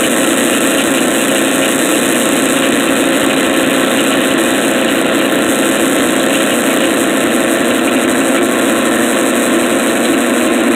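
Electric drill running steadily as it drills into metal, over the steady hum of the Wood-Mizer sawmill's engine running; the drill's high whine stops right at the end.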